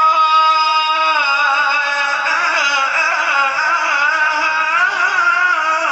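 A man's voice reciting the Quran in melodic tajweed style: a long held note, then wavering, ornamented runs of pitch.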